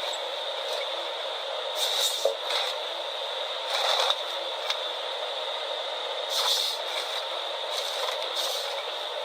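Heavy forestry machine working: a steady mechanical noise with a high hum, broken by a few short hissing, scraping bursts.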